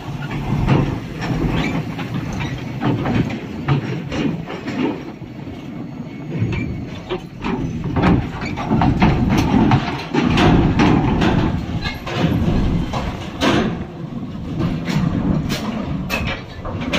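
Heavy trailer truck rolling aboard a ferry: a low diesel engine rumble with many metallic clanks and knocks from the wheels and load over the steel loading ramp, loudest about eight to eleven seconds in.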